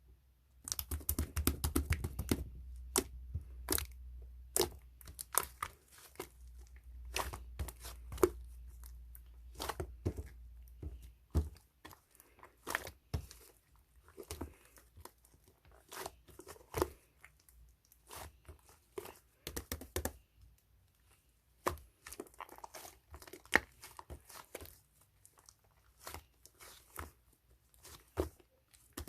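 Slime being worked by hand close to the microphone, giving irregular sticky crackles and pops. A low rumble lies under it for the first ten seconds or so.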